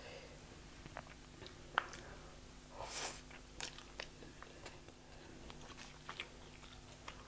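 Close-miked eating sounds: wet chewing clicks and mouth noises from a mouthful of chicken biryani eaten by hand, with a louder bite about three seconds in.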